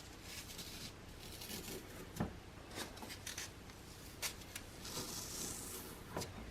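Clear-glue slime with floral foam cubes being mixed: faint irregular squishing, rustling and small clicks, with a sharper click about two seconds in.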